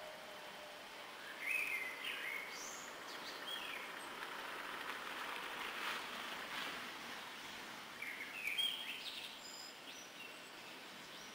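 Small songbird chirping in two short twittering bursts, the first about a second in and the second around eight seconds, over a steady outdoor hiss that swells into a rustle midway.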